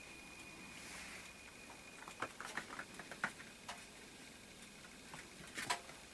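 Light scattered taps and clicks of a kitten's paws and claws pattering on a linoleum floor as it plays, in small clusters, over a faint steady high tone.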